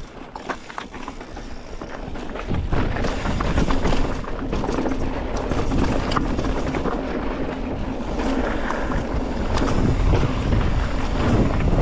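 Wind buffeting the microphone while a mountain bike rolls down rocky trail, with scattered clicks and rattles of tyres and bike over rock. The low rumble of the wind gets louder about two and a half seconds in as the bike picks up speed.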